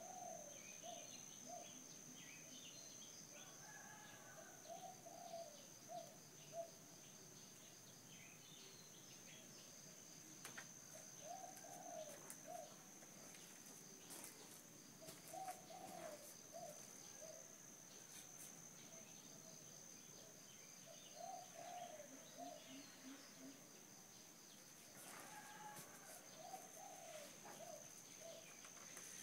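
Dove cooing faintly in short phrases of several low notes, repeated every few seconds, with faint chirps from small birds and a steady high-pitched hum.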